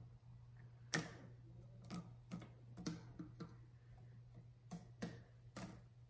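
Irregular sharp clicks and taps of a head gasket being pressed down and settled onto the deck and locating dowels of a Slant Six engine block, the loudest about a second in. A steady low hum runs underneath.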